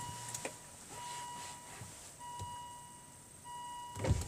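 An electronic warning beep from the Volvo S80, each beep about half a second long and repeating about once a second. A thump comes near the end.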